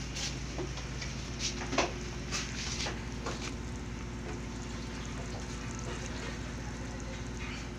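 Pot of chicken tinola broth boiling hard, bubbling steadily, with a few sharp metal clinks in the first three seconds or so. A steady low hum runs underneath.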